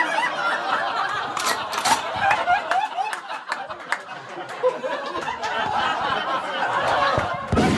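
Comedy club audience laughing at a roast punchline, many voices together.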